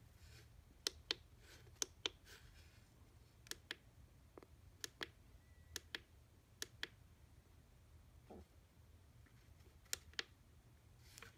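Plastic push-buttons on a Hart HPAD01 Bluetooth radio clicking as a thumb presses and releases them, a sharp double click every second or two, about seven presses in all, switching the radio between its Bluetooth and FM modes.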